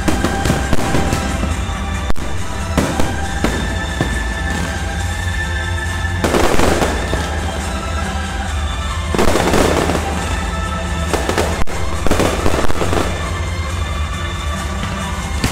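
Aerial firework shells bursting with sharp bangs throughout, rising into three denser swells of bursts about six, nine and twelve seconds in, over music playing.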